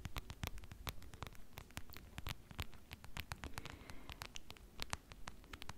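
Plush faux-fur slipper rubbed and brushed against a foam-covered microphone, giving a dense, irregular run of short scratchy crackles.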